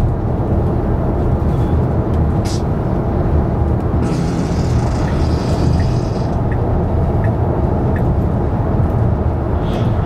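Steady road and tyre noise inside the cabin of a Tesla Model Y at highway speed, about 60–65 mph: a low, even rumble with no engine sound from the electric drive.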